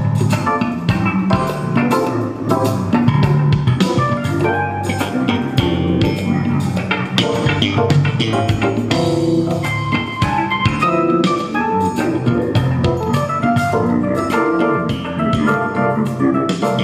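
Recorded music with a drum kit and pitched instruments played through a pair of tall PA loudspeaker cabinets, driven by an ATV TD9 power amplifier under test.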